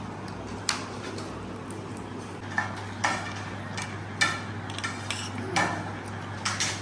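Metal spoon clinking and scraping against a ceramic plate while eating, several separate sharp clicks, the loudest about four seconds in, over a steady low hum.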